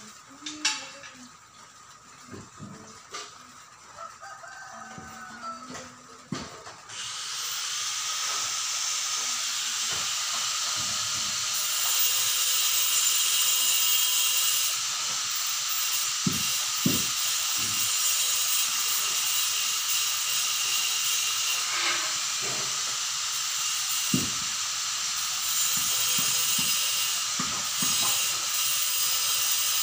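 A steady hiss that comes on suddenly about seven seconds in and keeps going, with a few soft knocks over it.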